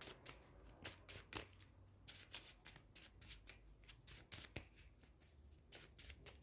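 A deck of cards being shuffled by hand, heard as a faint, irregular run of short card clicks and flicks.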